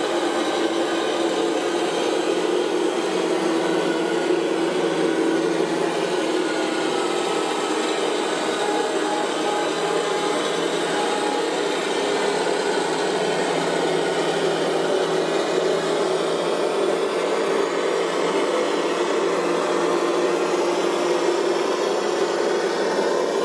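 Radio-controlled construction machine models running, a steady whirring of small electric motors and gearboxes.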